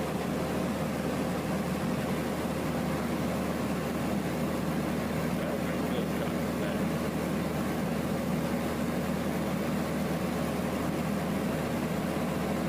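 Steady drone of a light aircraft's engine and propeller, heard from inside the cockpit, holding an even pitch with no sudden bangs.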